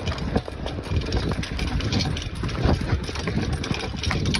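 Bicycle ridden over rough, bumpy dirt: a steady low rumble of tyres and air, with frequent small rattles and knocks from the bike.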